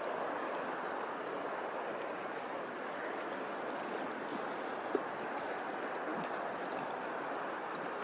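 Steady wash of moving water, with one faint click about five seconds in.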